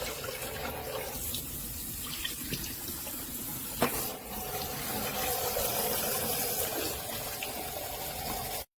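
Kitchen tap running into a sink as a vacuum's dust container is rinsed out under it, with one sharp knock about four seconds in. The sound stops abruptly near the end.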